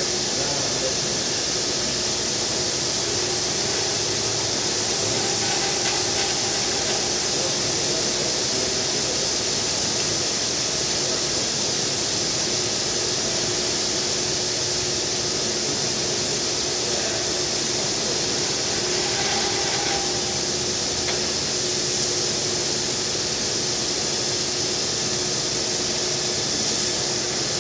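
Granite CNC router spindle turning a diamond tool while an abrasive dressing stick is swept against it: a steady, loud hiss with a faint steady hum underneath.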